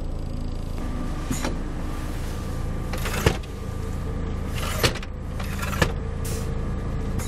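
2008 Iveco Stralis 500 truck's diesel engine idling steadily, heard from inside the cab. Four brief sharp clicks or knocks sound over the hum.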